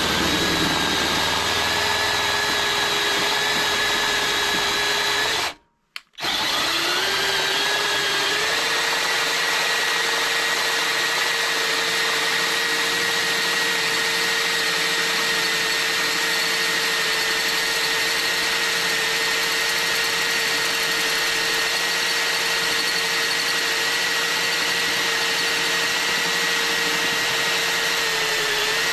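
Electric hand drill running steadily under load, boring a hole in metal with a bit just under ½ inch. About six seconds in it cuts out for a moment, then spins back up to a steady whine; it slows briefly near the end.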